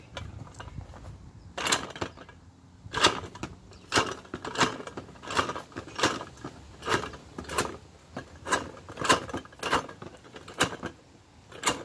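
Tube golf ball picker pressed down onto golf balls, each ball clacking up through the one-way opening into the tube and against the balls already stored. About a dozen sharp clacks, roughly one every half second to a second, start about a second and a half in.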